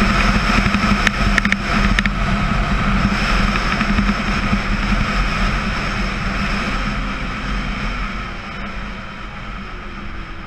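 Kawasaki KE100's 100cc single-cylinder two-stroke engine running steadily under way on a dirt road, with wind rushing over the camera. A few sharp clicks come in the first two seconds, and the engine and wind ease off over the last few seconds.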